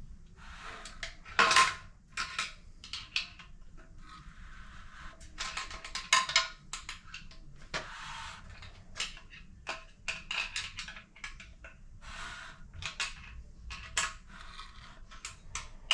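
Irregular metal-on-metal clicking and clinking in short bursts as a Triumph 1.5 engine is turned over by hand to check the cam timing. Some clinks ring briefly at the same pitch each time.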